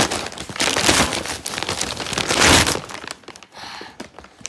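Packaging wrapper being crinkled and torn open by hand with force, in several loud crackling bursts, the loudest about two and a half seconds in, then quieter after about three seconds.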